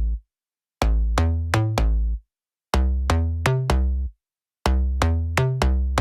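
Electronic background music: a bass-heavy synth riff of short, sharply struck notes played in phrases of about five notes, each phrase cut off by a brief silence, repeating three times.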